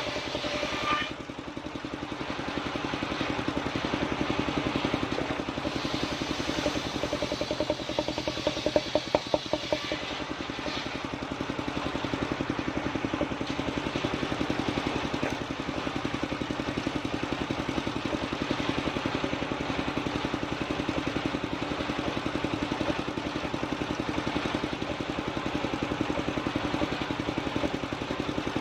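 Engine of a portable circular-saw sawmill running steadily, a fast even chugging with mechanical clatter, briefly dipping about a second in.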